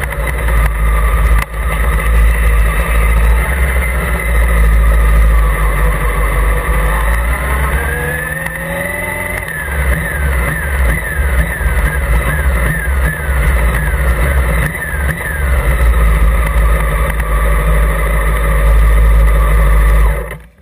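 Honda CBR 600 F Sport's inline-four engine running at low revs as the bike rolls slowly, with heavy low rumble on the tank-mounted microphone. The revs rise about eight seconds in, then swell in quick repeated surges for several seconds, and the sound cuts off suddenly just before the end.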